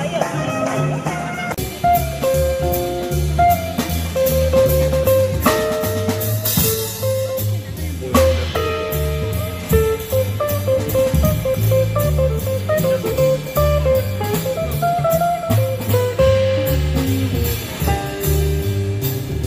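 A small jazz combo playing: electric guitar, upright bass, saxophone and drum kit. The bass steps from note to note under a melody line, and cymbals keep time.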